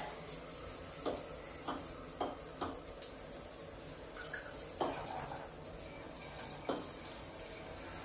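Water from a shower head spraying in a thin, weak trickle of jets, with a few light knocks. The flow is a tiny fraction of normal, the fault of a new Kohler 8304 thermostatic shower valve whose internal stops are fitted with their tabs turned the wrong way.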